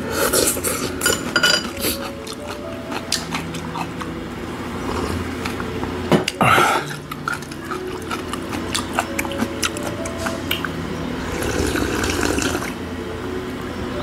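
Eating sounds from a bowl of clam knife-cut noodle soup: noodles and broth slurped from chopsticks and the bowl, with small clicks of chopsticks and bowl, a loud slurp about six seconds in, and a longer sip of broth near the end.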